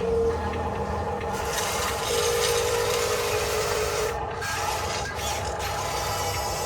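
Gritty scraping and grinding of gravel and dirt under a 1:14 scale RC construction truck, with the whine of its small electric drive motor coming in briefly at the start and again for a couple of seconds in the middle.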